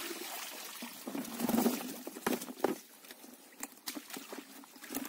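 Water trickling and splashing from a bamboo basket of freshly netted small fish as they are handled and tipped out, with sharp wet slaps and clicks among them. A louder splashing spell comes about a second and a half in.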